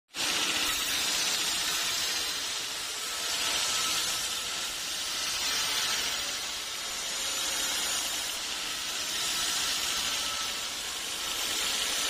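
Band sawmill blade cutting through an old teak log: a steady hissing rush that swells and eases a little every few seconds.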